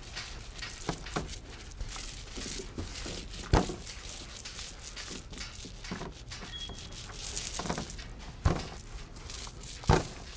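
Paint roller spreading thick glue across a painted ceiling, a soft sticky crackling and rasping, broken by a few sharp knocks, the last near the end.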